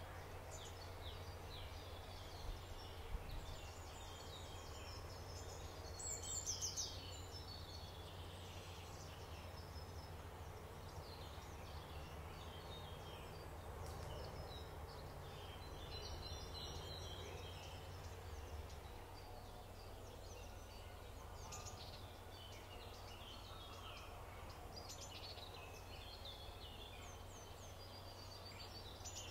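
Wetland field recording: scattered birdsong and calls, short high chirps and trills in bursts every several seconds, over a steady low rumble.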